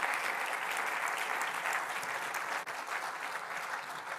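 An audience applauding steadily at the end of a lecture.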